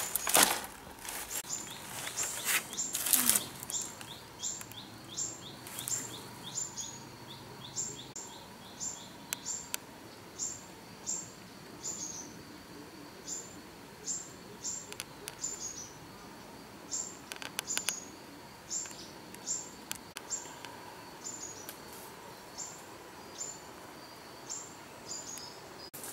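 A small bird calling over and over with short, high chirps that drop in pitch, about one to two a second, sometimes in quick pairs. In the first few seconds a few sharp rustles are louder than the calls.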